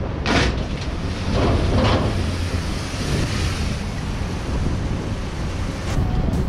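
Wind buffeting the microphone: a steady low rumble, with a few brief noises in the first two seconds.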